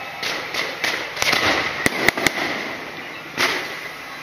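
Aerial fireworks going off: shells rising and bursting overhead with a steady crackling hiss, three sharp bangs in quick succession about two seconds in, and a louder rush of hiss a little later.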